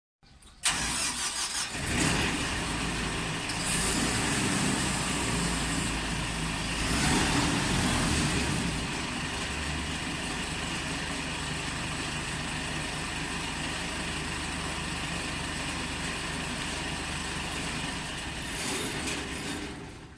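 Four-row corn harvester's engine and machinery running steadily, with a few louder swells in the first half, fading out near the end.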